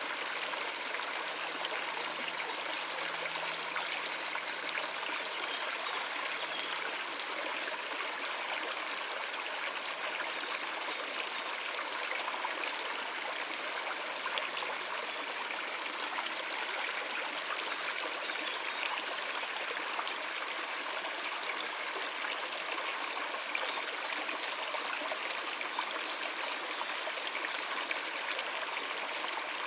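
Stream water running and splashing over rocks, a steady even rush with no pauses.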